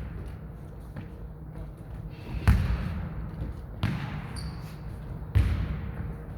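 Jokgu ball being kicked and bouncing on the court during a rally: three sharp thuds about a second and a half apart, each trailing off in an echo, with a fainter knock before them.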